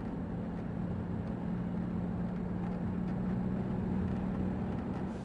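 Steady mechanical drone with a constant low hum, cut off abruptly at the end.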